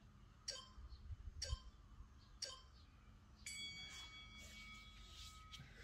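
Countdown timer sound effect: three short ticks a second apart, then a ringing chime that holds for about two seconds as the timer reaches zero, marking the end of the 30-second plank interval.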